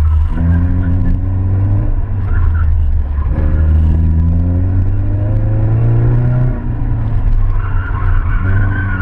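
Chevrolet Cavalier's engine heard from inside the cabin, driven hard on an autocross course: the revs dip at lifts and shifts, climb steadily from about three seconds in, then drop off sharply. Tyres squeal briefly near the end.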